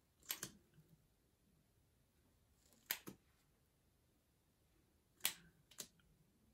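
Sharp little clicks in three close pairs, a few seconds apart, from handling a concealer tube and its wand applicator.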